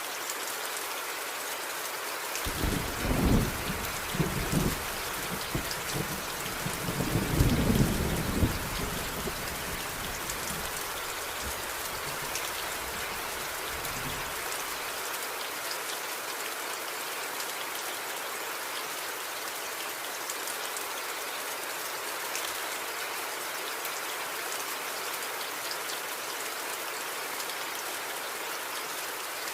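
Steady heavy rain hissing, with a roll of thunder rumbling low from a few seconds in, swelling loudest around eight seconds and dying away by about fifteen seconds.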